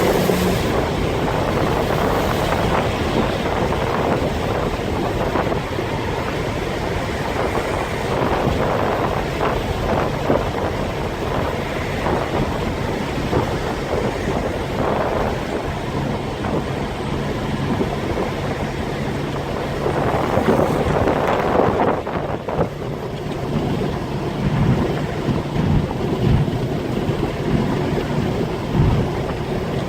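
Audi 2.7T twin-turbo V6, running on K04 turbos, accelerating hard onto a highway, with wind rushing in through open windows. Under the engine there is an air-sucking whoosh from the turbo intake that began after the turbos were replaced, which the owner is unsure is normal.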